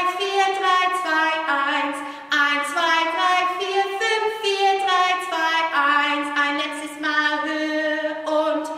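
A woman singing unaccompanied: a melody of held notes, each lasting about half a second to a second, stepping up and down with short breaths between phrases.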